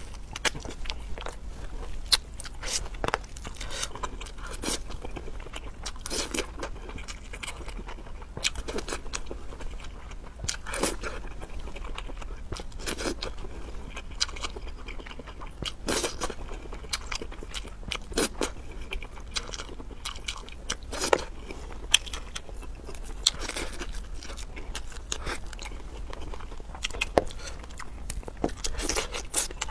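Close-miked eating of seafood: irregular bites and chewing, with wet mouth clicks and crunches.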